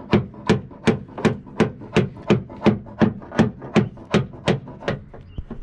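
Steady pounding on the sheet-metal backup-camera housing in the roof of a Mercedes Sprinter van, struck from the inside about three times a second to bang the dented housing back into shape.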